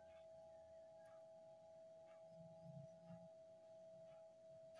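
Near silence: room tone with a faint steady whine at one pitch and a few very faint ticks.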